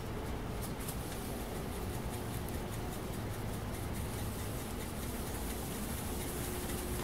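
Steady hiss and low rumble of a forge furnace's burner running, with a faint steady tone. Light scraping and rubbing in the first second or so as case-hardening compound is worked onto the red-hot steel slab.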